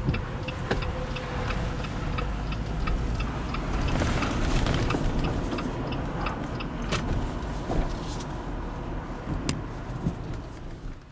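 A car's turn signal clicking steadily, about two to three ticks a second, over the low rumble of the engine and road noise inside the cabin. The clicking stops about six seconds in, as the turn is completed.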